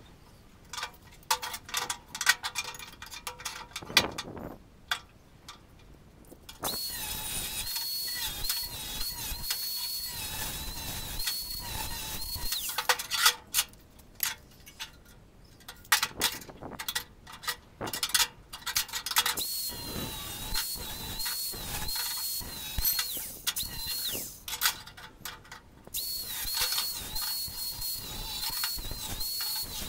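Angle grinder with a cutting disc cutting steel square tubing: three long runs of a steady high whine and hiss, the first about seven seconds in, the pitch dipping briefly now and then as the disc bites. Between the runs, sharp taps and clanks of the steel pieces being handled and measured.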